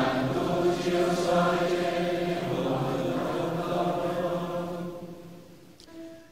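A group of voices chants a sung response in unison, in a resonant church acoustic: the response to the prayer for the departed's eternal rest. The chant fades out about five seconds in, and faint instrumental music begins near the end.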